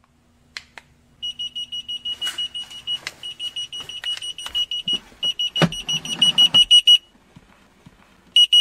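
ESKY key finder receiver beeping rapidly at a high, steady pitch, about seven beeps a second, answering a press of the transmitter button. The beeping stops about two seconds before the end, and a couple of knocks are heard partway through.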